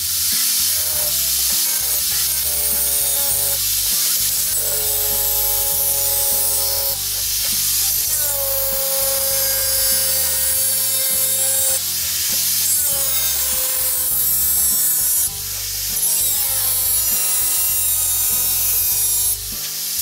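Angle grinder with a thin cutting disc cutting through the rim of a thin metal basin: a continuous loud, high-pitched grinding hiss. It eases off briefly twice near the end.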